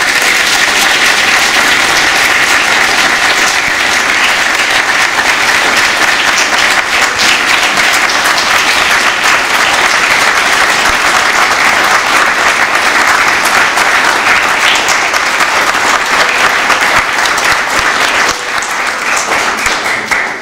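A large crowd applauding: dense, steady clapping that thins out and dies away near the end.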